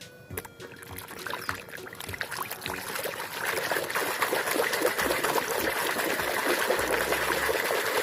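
Water trickling and splashing as a muddy plastic toy is washed by hand, growing louder about three seconds in. Light clicks and knocks come at the start.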